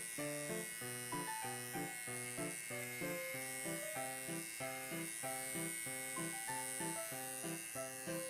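Small battery pet clipper buzzing steadily as it trims the fur between a cat's paw pads. Background music plays over it, a melody of short notes changing about three times a second.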